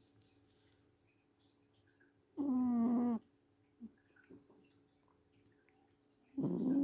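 Domestic cat snoring loudly, each breath giving a drawn-out, buzzy, pitched snore just under a second long. One comes a couple of seconds in and the next starts near the end, about four seconds apart.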